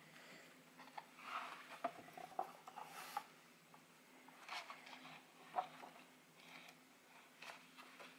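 Pages of a large printed art book turned by hand: faint rustles and soft flicks of heavy paper, loudest around three seconds in and again near six seconds, over a faint steady hum.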